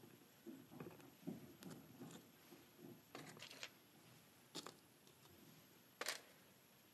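Faint clicks and light taps of small art-glass pieces being set onto a mosaic backing, with soft handling rustle between. The sharpest click comes about six seconds in.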